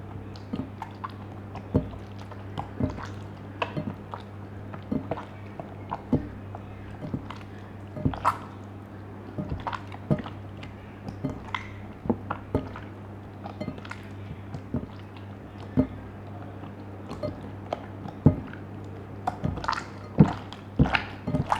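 Slime being squished and worked by hand, giving irregular wet clicks and pops over a steady low hum.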